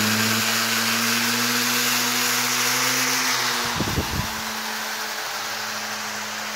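Model aeroplane motor spinning a propeller that pushes a toy train, a steady whine with rushing air. About four seconds in the pitch briefly wavers and dips, then it runs on a little quieter as the train moves away.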